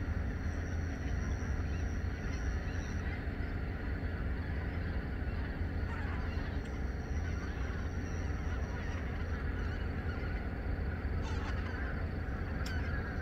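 A flock of migrating wild geese honking, a dense continuous chorus of calls.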